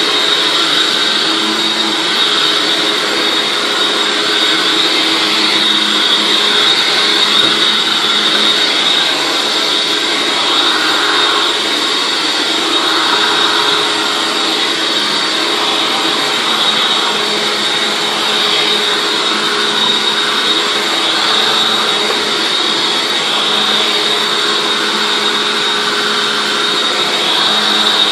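Hoover WindTunnel Anniversary Edition self-propelled upright vacuum cleaner running steadily, its motor giving a constant rushing noise with a steady high whine.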